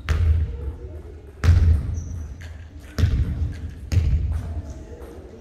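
Basketball bouncing on a hardwood gym floor: four heavy thuds about a second or more apart, each echoing in the large hall.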